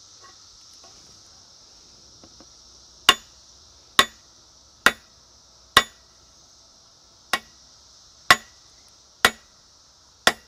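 Eight sharp hammer blows, about one a second, on an inverted cocobolo axe handle resting on an anvil, driving the Damascus axe head fully down onto the handle.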